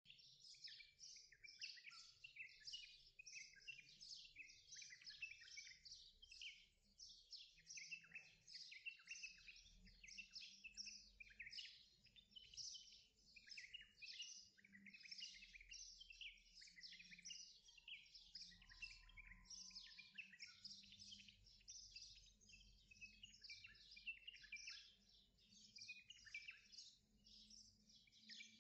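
Faint, dense chorus of many small birds chirping without a break, calls overlapping one another throughout.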